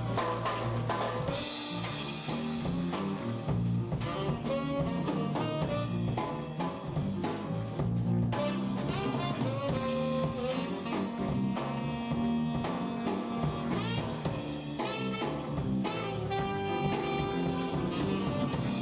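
A live jazz quartet plays an instrumental jazz number, with the drum kit prominent over a moving bass line.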